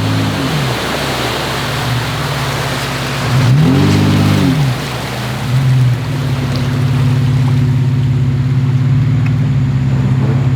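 A 4x4's engine running under load, revving up and back down about four seconds in, over a steady rush of churned, splashing water.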